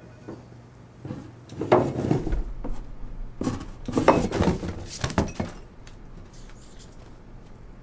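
An office door opening, then two bursts of thumps and clinks as cardboard boxes, papers and a glass bottle are dropped and tipped onto the carpeted floor.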